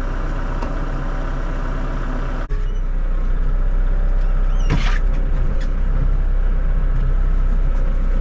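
Kubota MX6000 tractor's diesel engine running steadily at idle, with one short metallic knock about five seconds in.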